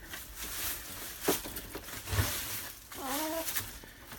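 Rustling, crinkling handling noise, with a sharp click a little past a second in and a short wavering call about three seconds in.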